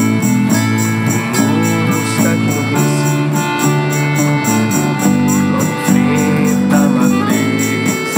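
A band playing an instrumental passage between vocal lines: a steel-string acoustic-electric guitar strummed in chords over a bass line, with hand percussion keeping a quick, even rhythm.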